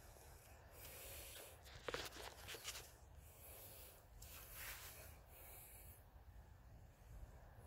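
Near silence: faint outdoor background, with a short cluster of soft clicks about two seconds in.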